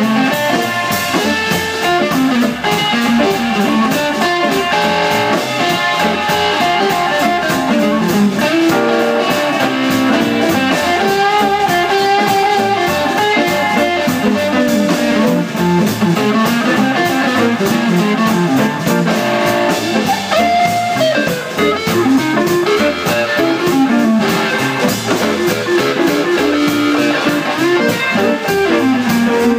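Live blues band playing: two electric guitars over upright bass and a drum kit, with the music running without a break.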